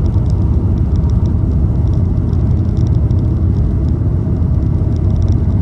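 Car driving at a steady speed: a low, even rumble of road and engine noise that does not change.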